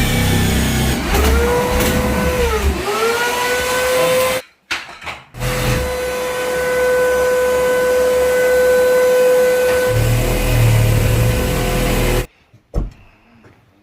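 Handheld power tool running in two long runs with a short stop between them. Its motor whine sags and recovers once under load early in the first run, then holds steady through the second run, which cuts off shortly before the end.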